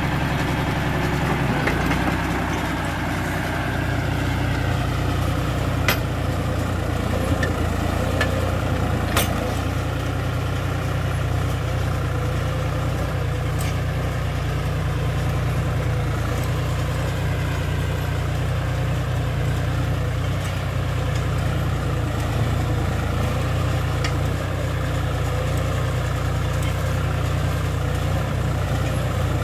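John Deere 5105 tractor's three-cylinder diesel engine running steadily under load as it pulls a mouldboard plough through stony soil, with a few faint sharp clicks.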